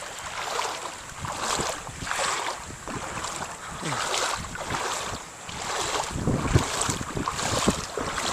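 Legs wading through knee-deep floodwater, the water swishing and sloshing with each stride, about one step a second. Wind buffets the microphone.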